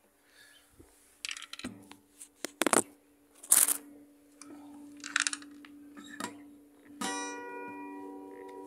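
Knocks and rustles of an acoustic guitar and phone being handled, the loudest a sharp bump a few seconds in. About seven seconds in, a chord is strummed on the acoustic guitar and rings on, slowly fading.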